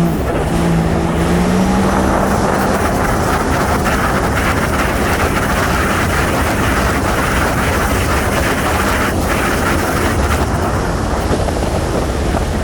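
Jet ski engine under full throttle, its pitch climbing a little in the first couple of seconds, buried in a loud, steady rush of wind and water at high speed.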